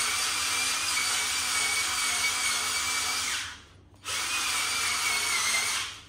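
Power drill spinning a fine-grit sanding disc on floor tile, a steady high whine with a hiss of abrasion. It runs, stops about three and a half seconds in, starts again half a second later and stops just before the end.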